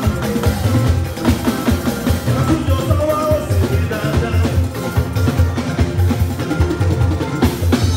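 Loud music with a steady, driving drum beat and a heavy bass, with some singing over it.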